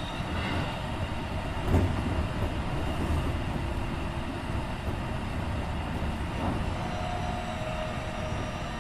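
Running noise inside a Keikyu 1500 series electric train car with a Mitsubishi IGBT-VVVF drive: wheels on rail with a steady hum and faint whining tones. A single louder knock comes just under two seconds in.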